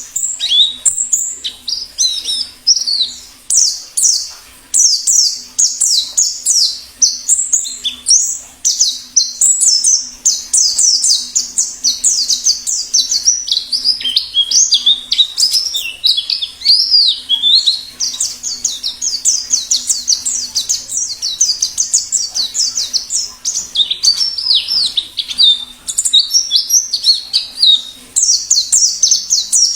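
White-eyes (pleci) singing wild forest-type song: an unbroken stream of rapid, high-pitched twittering made of quick down-sweeping notes.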